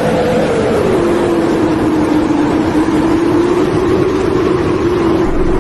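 Strong sandstorm wind blowing loudly against the microphone, with a howling tone that drops in pitch in the first second or so and then holds steady.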